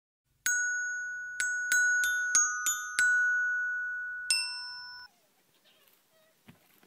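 Short intro jingle of bright, bell-like struck notes, like a glockenspiel: eight notes, each ringing on as it fades. The last note rings until the jingle cuts off about five seconds in.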